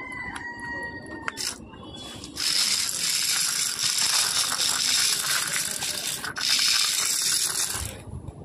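Small DC motor and plastic gear train of a homemade RC car whirring and rattling as the car drives over concrete. The sound starts about two seconds in, cuts out briefly once, and stops near the end.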